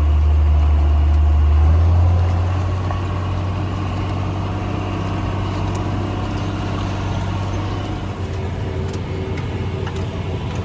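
Farm tractor engine running under throttle, loud and steady at first. About two seconds in its note shifts slightly higher and it grows quieter, easing off further near the end.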